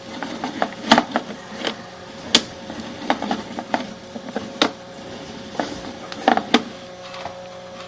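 Irregular clicks and knocks as a sewer inspection camera's push cable is worked back and forth through the drain line, over a steady faint hum.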